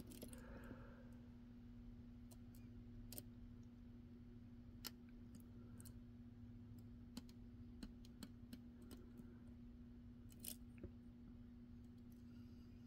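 Faint, irregular clicks of a flag pick working the pins of a stainless steel pin-in-pin padlock under a tension wrench while the picker feels for binding pins, over a steady low hum.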